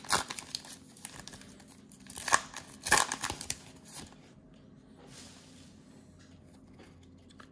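Plastic wrapper of a trading-card cello pack being torn open and crinkled by hand, with a run of sharp crackles, loudest about two and three seconds in. It then settles into quiet rustling as the cards are slid out.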